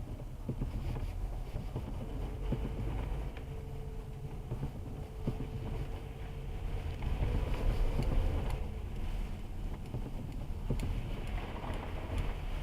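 Car driving in the rain, heard from inside the cabin through a dashcam's microphone: a steady low rumble of road and engine noise. A faint steady hum runs for a few seconds in the middle.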